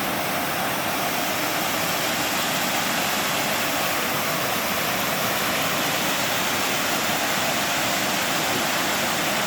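Waterfall pouring steadily into a pool: a constant, unbroken rush of falling water.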